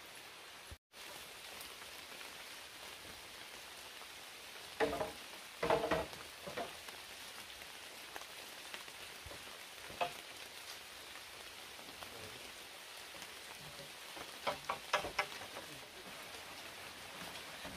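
Bamboo poles knocking and clacking as they are handled and fitted into a split-bamboo wall: a couple of knocks about five to six seconds in, one near ten seconds and a quick cluster near fifteen seconds. A steady hiss runs underneath.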